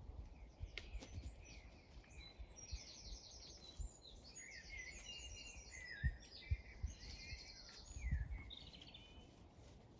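Songbirds singing faintly, a run of quick repeated trills and chirps, with a few low thumps.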